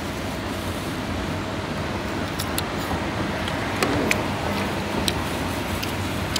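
Steady road traffic noise, with a few sharp clicks and taps.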